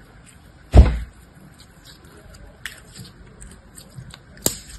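Green jelly slime being squeezed and stretched by hand, with one loud thump about a second in, a few small sticky clicks, and a sharp snap near the end.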